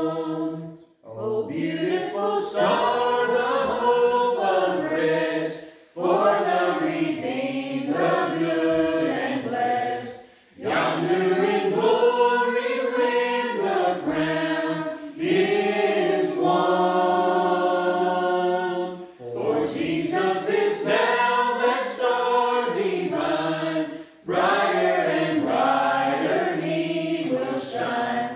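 Small mixed group of adult and child voices singing a Christmas carol unaccompanied, in phrases with short breath pauses between them and one long held note near the middle.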